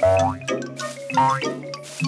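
Bouncy cartoon music score with springy 'boing' twangs rising in pitch, three in quick succession, about one every half second, for a coiled snake bouncing like a spring.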